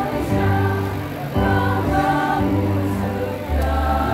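Women's choir singing with electronic keyboard accompaniment; the sung notes and the held low bass notes change together in phrases a second or so long.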